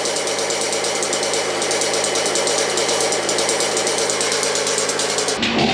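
A machine running with a fast, even rattle over a steady hum, which cuts off abruptly near the end and gives way to a different engine-like running sound.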